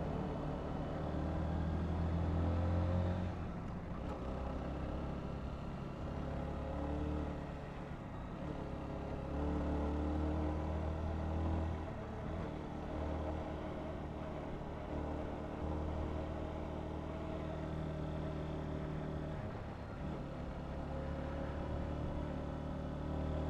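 Honda CBR125's single-cylinder four-stroke engine running on the move, its note shifting in pitch several times, over steady road and wind noise.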